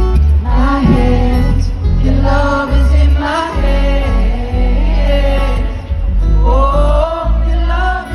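A male pop singer sings live over an acoustic guitar, amplified through a stadium PA, with long held notes and a heavy, boomy low end.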